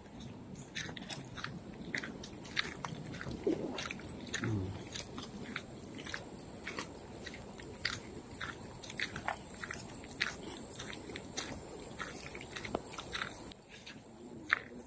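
Footsteps crunching on a narrow gravel-and-grass footpath, uneven steps about twice a second.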